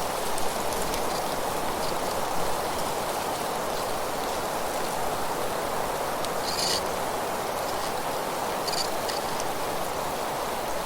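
Steady rushing ambience of wind and rustling leaves, with a couple of brief high sounds about seven and nine seconds in.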